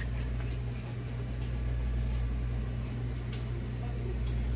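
Steady low mechanical hum, with a few short faint ticks near the end.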